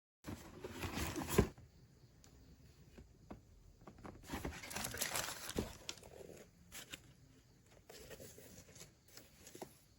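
Rustling, crinkling handling noise in three spells, with scattered clicks and a sharp knock about a second and a half in.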